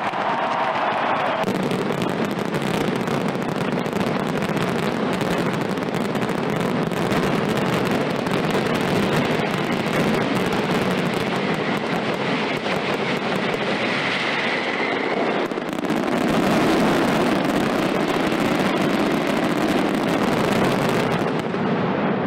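Mascletà: a dense, continuous barrage of gunpowder firecracker bangs that grows deeper and louder about fifteen seconds in.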